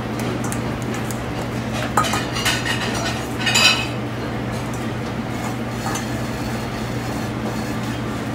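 Metal clinks and rattling from a stainless steel mixing bowl as Brussels sprouts are handled in it, with a sharp clink about two seconds in and a longer rattle about a second later. A steady kitchen ventilation hum runs underneath.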